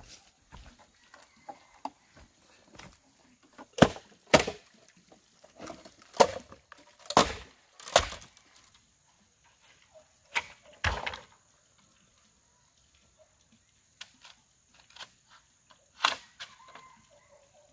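Bamboo poles and strips knocking and clattering as they are handled, lifted and dropped, in separate sharp hollow knocks several seconds apart. A faint steady high-pitched tone comes in about halfway through and keeps going.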